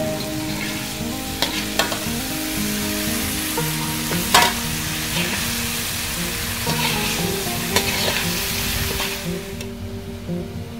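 Broccoli sizzling in hot oil as it is stir-fried in an aluminium wok, with a metal spatula scraping and knocking against the wok a few times, the sharpest knock about four seconds in. The sizzle dies down near the end.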